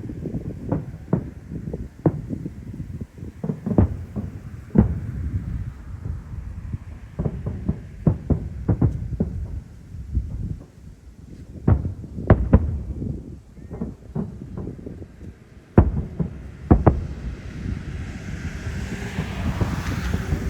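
Aerial fireworks shells bursting overhead in a rapid, irregular volley of booms and bangs. Near the end a steady low hum builds up under them.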